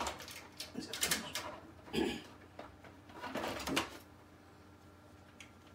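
Plastic top panel of an Epson SureColor P600 printer knocking and scraping against the printer's chassis as it is worked loose and lifted off, in a few irregular knocks and scrapes.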